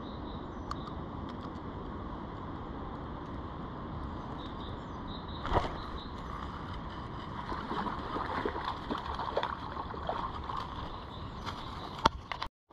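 Spinning reel being wound during a lure retrieve, with steady handling noise, a sharp knock about five and a half seconds in and irregular crackling in the second half; a click just before the sound cuts off near the end.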